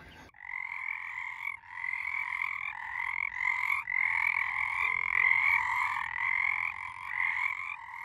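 Frogs croaking in a steady chorus: short, repeated, rasping calls that overlap one another, starting about a third of a second in.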